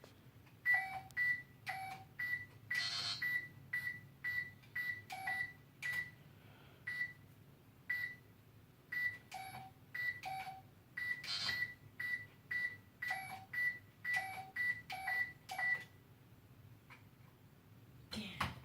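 Spy Gear toy door alarm giving short electronic beeps, one at a time and irregularly spaced, some with a lower second tone, each with a click. About two dozen beeps, ending some 16 seconds in; a knock near the end.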